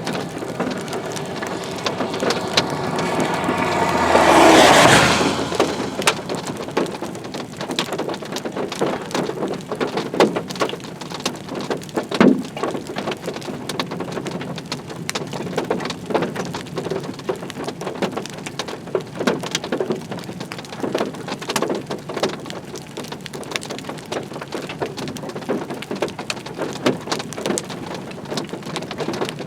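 Steady rain with many sharp drop hits spattering on a surface. A few seconds in, a loud swell of noise with a rising tone builds and peaks, then dies away.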